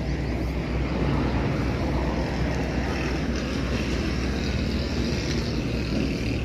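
Steady low drone of an idling truck engine, unchanging throughout.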